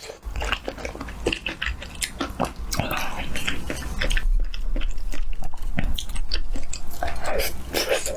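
A person chewing and biting a mouthful of food close to the microphone: irregular wet, smacking and crunchy mouth sounds.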